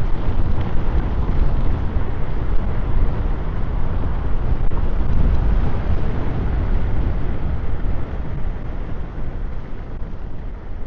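Wind buffeting and road rumble picked up by a clip-on wireless mic while riding an electric scooter: a steady, deep rushing noise that eases slightly near the end.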